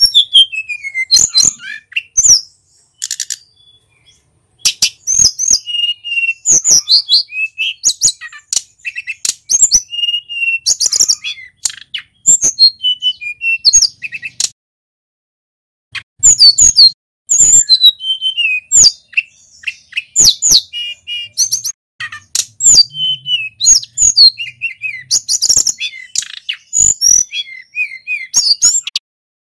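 Male sulingan gunung songbird singing loud, fast, varied whistled phrases and sharp chips, with short gaps and a pause of about a second and a half near the middle.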